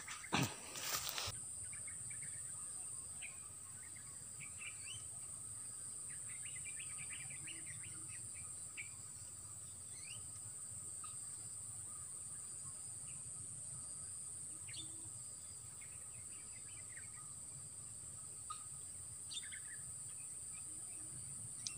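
Rural riverside ambience: a steady high-pitched insect drone with scattered short bird chirps throughout, and a few handling knocks about a second in.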